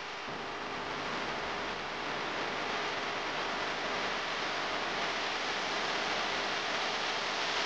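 Vanquish VS4-10 Fordyce RC crawler driving over loose gravel: a steady crunching hiss of the tyres on the stones, growing slightly louder as the truck nears.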